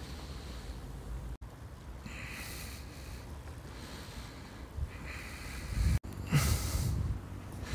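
Wind buffeting the microphone over river water lapping at the shore, with a louder rush of noise about six seconds in.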